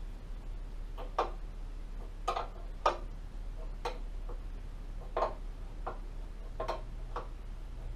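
Hand tool working on metal motorcycle parts: a series of short, sharp clicks, irregularly spaced at about one a second.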